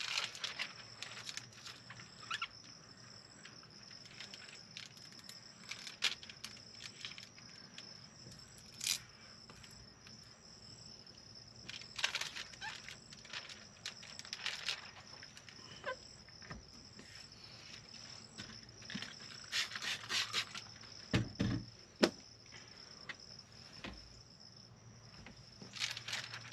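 Crickets chirping steadily, a constant high trill, under the intermittent crinkling, scraping and tapping of plastic window tint film and its liner being handled and smoothed onto wet door glass. The handling noises come in scattered clusters, busiest about three quarters of the way through, with a couple of dull knocks.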